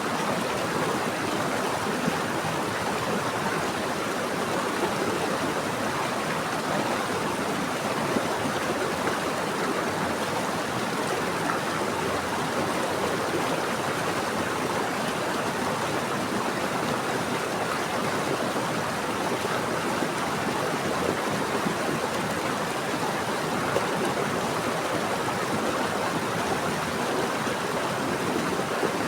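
Running water flowing steadily, an even, unbroken rushing.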